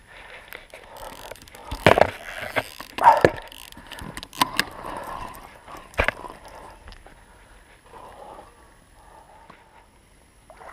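Scattered knocks, scuffs and rustles of an angler moving and handling his rod and landing net close to the camera, with the loudest knocks about two, three and six seconds in; it grows quieter near the end.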